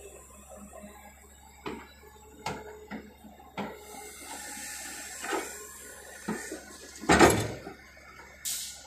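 Soil from an L&T-Komatsu excavator's bucket pouring into the steel bed of a Tata tipper truck: a heavy, rushing thud about seven seconds in, the loudest thing heard. Scattered sharp metal clanks come before it.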